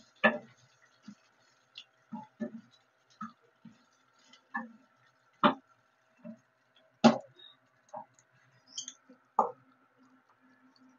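Steel spoon knocking and scraping against an enamel saucepan while vermicelli, cashews and raisins are stirred as they fry in ghee. About a dozen irregular clinks, a few of them louder, with a faint steady hum behind them.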